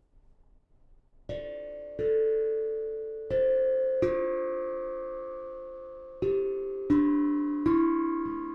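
11.5-inch ten-note tongue drum played one note at a time, about seven strikes in all starting a little over a second in. Each note rings on and fades slowly, with the pitches stepping up and down in a slow melody.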